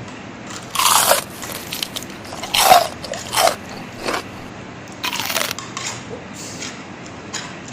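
Someone biting and chewing super-crispy fried chicken, with about five loud crunches a second or so apart.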